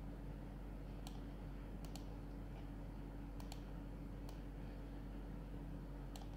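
Computer mouse button clicking: a few sharp clicks, several in quick pairs, as a shape is selected and dragged on screen, over a steady low electrical hum.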